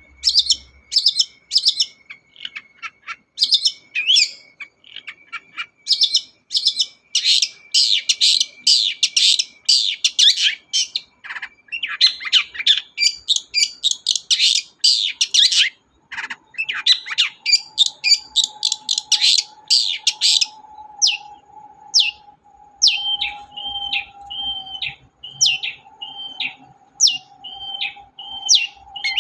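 Long-tailed shrike (cendet) singing a fast, continuous chattering song of sharp, rapidly repeated high notes and mimicked phrases.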